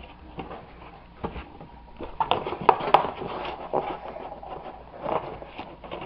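Handling noise: irregular rustles and light clicks, busiest about two to three seconds in and again near the end.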